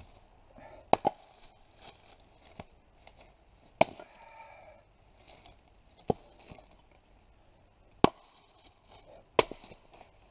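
Double-bit axe splitting firewood: five sharp chopping blows, one every one and a half to two seconds, with a lighter knock between the first two.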